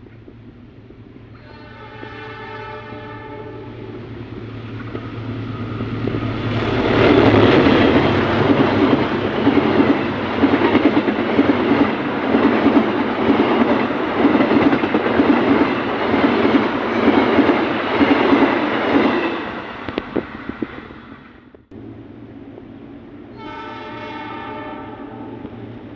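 An intercity passenger train sounds its horn, then passes at speed: its wheels clatter rhythmically over the rail joints for about twelve seconds before it fades away. After a sudden break, another horn blast sounds near the end.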